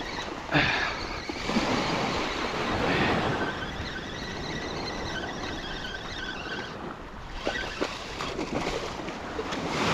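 Spinning fishing reel cranked steadily to bring in a small hooked snook, its gears making a faint repeating whine, over surf and wind noise on the microphone.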